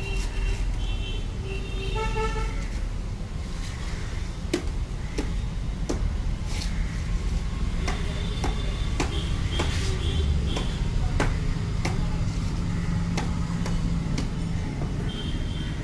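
Caulking gun clicking each time its trigger is squeezed, about once a second, as it lays a bead of windshield adhesive paste along a car's windshield frame. Car horns toot several times over a steady traffic hum.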